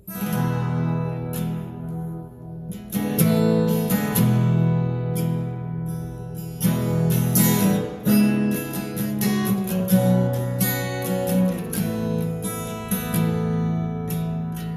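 Acoustic guitar strumming chords in a steady rhythm, starting abruptly.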